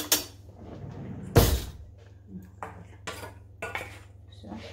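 Kitchen dishes and utensils knocking and clinking, with one loud thump about a second and a half in and a few lighter clicks after it.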